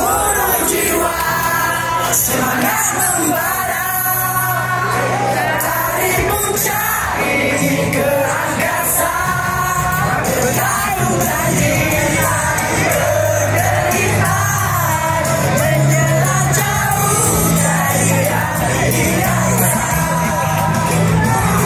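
A group of people singing along loudly to pop music, with shouts and whoops mixed in.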